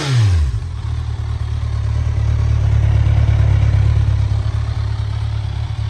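2014 Kawasaki Ninja 1000's inline-four engine settling back from a throttle blip in the first half-second, then idling steadily.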